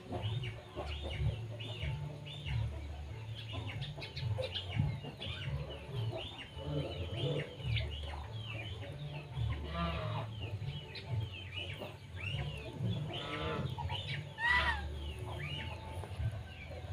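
Chickens clucking nearby, with a steady run of short, high, falling chirps and a few louder calls about ten and fourteen seconds in, over a patchy low rumble.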